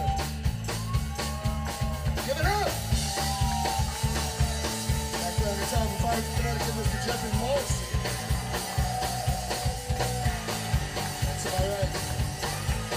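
Live rock band playing: drums, bass and electric guitar under a lead line of long, wavering held notes.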